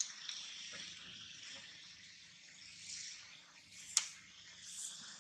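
Faint steady high hiss of background ambience, with a sharp click just at the start and another about four seconds in.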